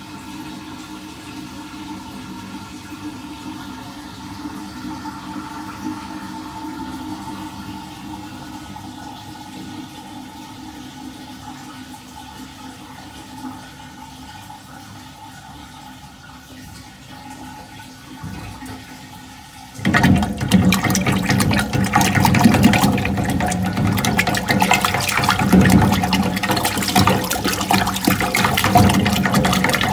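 Water swirling in a toilet bowl: a steady, moderate swirl for about twenty seconds, then a sudden, much louder rush of flushing water that continues to the end.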